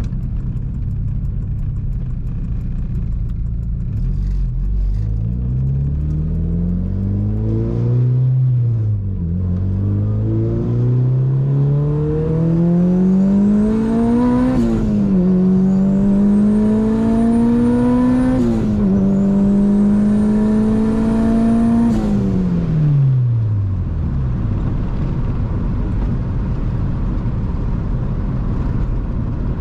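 Turbocharged Honda Civic Si four-cylinder accelerating hard through the gears: the engine note climbs, drops at three quick upshifts, and a high turbo whistle rises with it in each gear. Near the end the driver lifts off and the engine note falls away.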